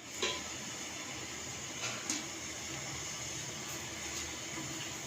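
Oil sizzling steadily, with a few small pops and ticks.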